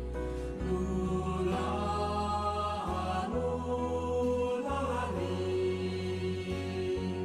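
Slow sung chant: voices holding long notes that change pitch every second or two, over a steady low drone.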